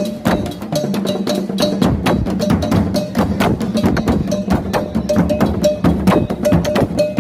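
African drums played in a fast, steady rhythm of several strikes a second, deep drum tones under sharper slaps, with a short higher struck note repeating through the pattern.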